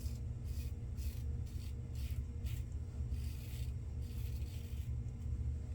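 Razor blade scraping stubble through shaving lather in a run of short strokes, a few a second, over a steady low hum.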